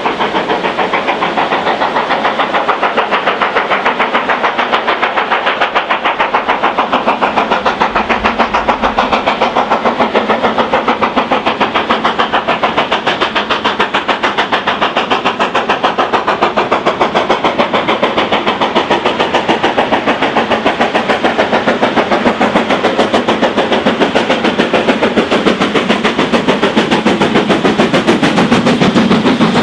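BR Standard Class 4 2-6-0 steam locomotive working a train uphill, its chimney exhaust beating in a rapid, even rhythm. The sound grows louder as it nears and passes.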